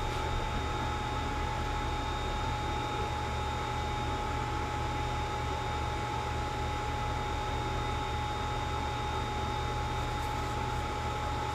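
Steady machine hum with a constant high whine over a low drone, from a Creality CR-10S Pro 3D printer running with its fans and motors.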